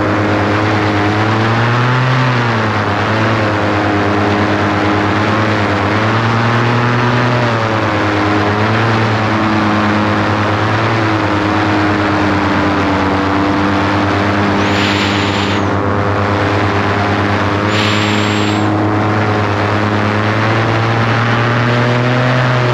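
An engine running steadily, its pitch drifting slightly up and down as the speed changes. Two short bursts of hiss come about two-thirds of the way through.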